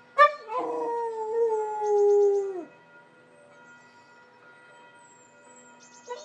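Dog howling: one long howl held about two seconds that sags and drops in pitch as it ends, and a second call begins near the end.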